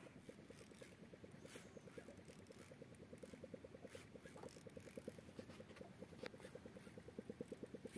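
Faint, steady mechanical pulsing, about seven even beats a second, growing louder near the end.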